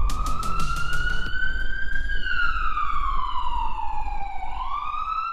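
A siren sound effect wails over a low pulsing electronic music bed. The wail rises for about two seconds, falls slowly, and starts rising again near the end. A few sharp clicks come in the first second.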